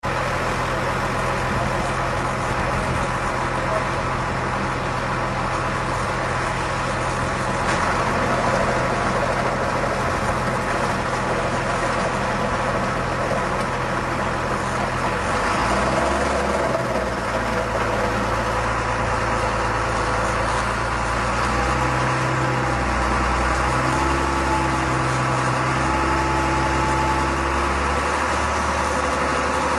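Tractor engine running steadily, driving a stump grinder. The engine note shifts about halfway through, and a higher tone comes in a little before the end.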